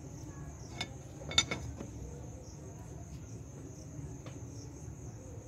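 A few sharp metallic clicks from a spanner on the front-wheel hub check nut of a Swaraj 744 FE tractor as it is tightened over freshly greased bearings; the loudest comes about a second and a half in. Under them runs a steady high-pitched insect chirring.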